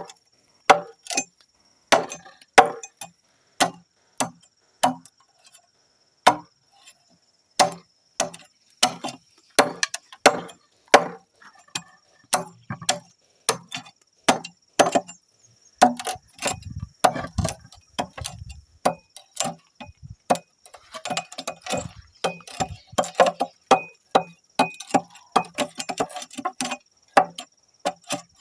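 Repeated sharp blows of a tool on wood, irregular, about one or two a second, with a busier run of lighter knocks near the end, as a wooden beehive cover is worked.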